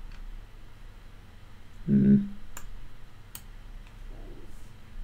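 Two sharp computer mouse clicks about a second apart, preceded by a short hum of a man's voice about two seconds in.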